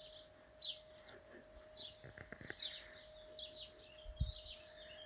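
Small birds chirping, short repeated chirps throughout, over a faint steady hum; a brief low thump about four seconds in.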